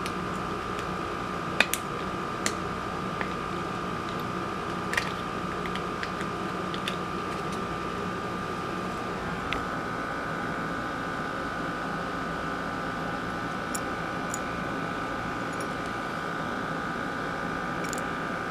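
Steady hum of a fan or air-conditioning unit, with a constant high whine over it, and a few faint clicks of a fishing lure being handled.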